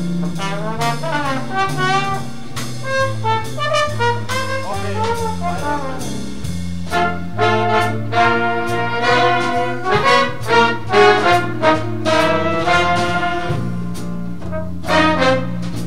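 A big band playing jazz: trumpets and trombones play short ensemble phrases over a bass line that moves from note to note.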